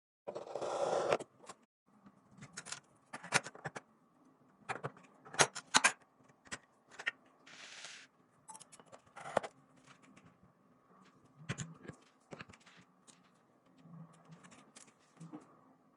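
Hands handling computer parts and packaging: scattered clicks and taps, with a burst of rustling in the first second and a short hiss about eight seconds in.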